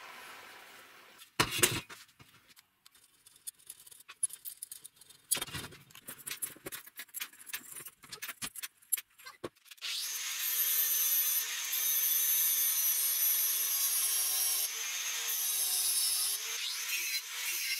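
Scattered clicks and knocks of nails and small metal parts being handled, with two louder knocks about a second and a half and five and a half seconds in. About ten seconds in, a handheld angle grinder starts grinding metal: a steady hiss with a wavering whine.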